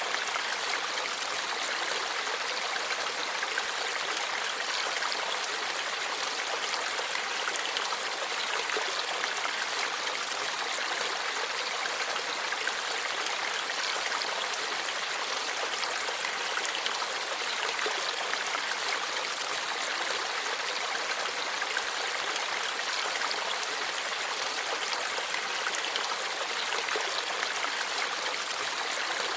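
Forest stream flowing and babbling steadily over rocks, an even rush of water with no change in strength.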